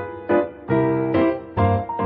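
Piano music: pitched notes and chords struck about two a second, each dying away after it is struck.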